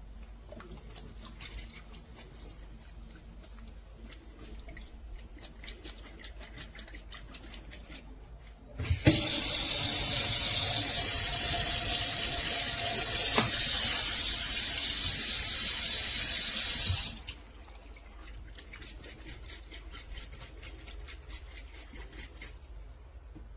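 A water tap running steadily into a sink for about eight seconds, starting about nine seconds in and shutting off abruptly; faint small clicks before and after.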